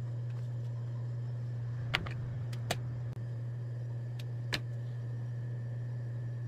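A steady low hum, with a few sharp clicks and snaps of evergreen sprigs and twigs being handled: two close together about two seconds in, then one more shortly after, and another past the middle.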